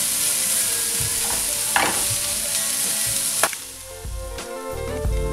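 Chopped onion, grated carrot and garlic sizzling in olive oil in a non-stick frying pan as a spatula stirs and scrapes them. About three and a half seconds in, the sizzle cuts off and background music takes over.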